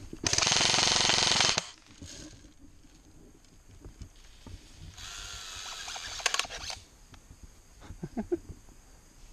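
Airsoft electric rifle firing a short full-auto burst, a loud rapid rattle that starts and stops abruptly and lasts just over a second. A second, fainter burst of rattling follows about five seconds in.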